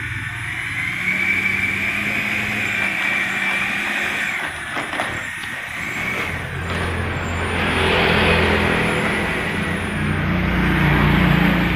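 70 mm 12-blade electric ducted fan running on a 3S LiPo, a high whine with a rush of air that rises and falls with the throttle. The whine holds steady at first, dips a few seconds in, then swells louder around eight seconds in and again near the end, with a few light clicks in between.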